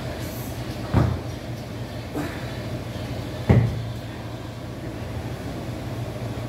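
Two heavy thuds about two and a half seconds apart, with a lighter knock between them, typical of dumbbells being set down, over a steady low hum.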